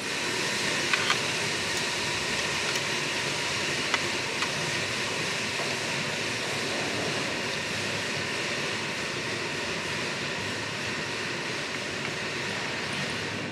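A loud, steady rushing noise that starts and stops abruptly, with a few light clinks of a metal fork on a ceramic plate in the first few seconds.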